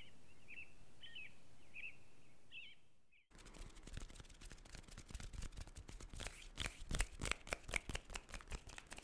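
Small birds chirping a few times over an outdoor hiss. Then an abrupt cut about three seconds in to hands moving fast close to the microphone: quick, irregular crisp rustles and taps of skin and fingers, louder than the birds.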